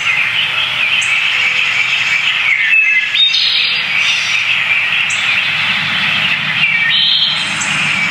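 Dense chorus of many small birds chirping and twittering continuously, with sharper higher calls breaking in every second or so. A faint low rumble runs underneath and grows a little stronger in the second half.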